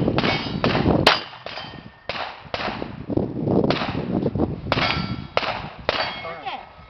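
Rapid string of gunshots, roughly one every half second, with steel target plates clanging and ringing as they are hit.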